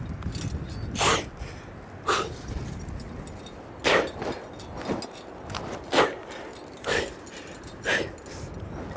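A climber's short, sharp exhalations, about one a second, as they strain to hold on and move up a hard granite crack.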